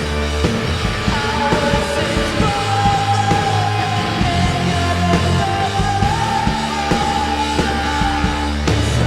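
Loud rock music: a full band with a steady bass underneath and a long, slightly wavering high note held from about a second in until near the end.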